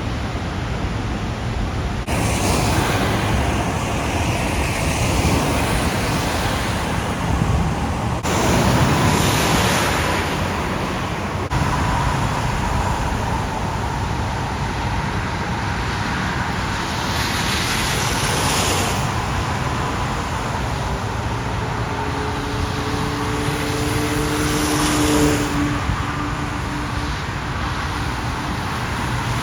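Cars driving through flooded streets, with engine and tyre-and-water noise swelling as each one passes. A steady two-note tone sounds for a few seconds about two-thirds of the way through.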